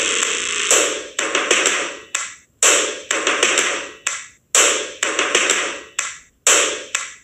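Percussion opening a music track: a string of loud, noisy hits, each dying away over about half a second, coming about twice a second in an uneven rhythm, with no melody or voice.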